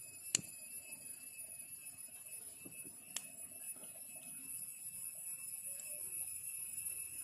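A handheld lighter struck twice, about a third of a second in and again about three seconds in, to set camphor tablets alight under charcoal. A steady high-pitched whine runs underneath.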